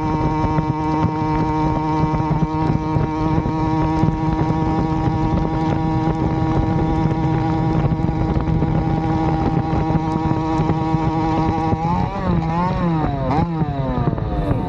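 Motorized bicycle's Avenger 85 two-stroke engine with a Nibbi PE19 carburetor and a welded Gomax expansion pipe, running under way at a steady high pitch. Near the end the revs drop and climb again a few times, falling overall as the throttle is eased.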